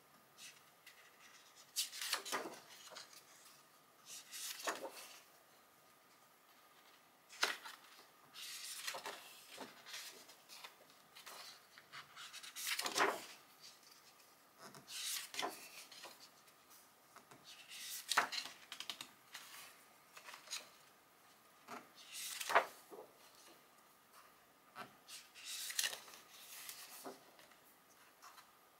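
Pages of a hardcover photobook being turned by hand: a short papery swish and rub with each turn, coming about every two to four seconds with quiet between.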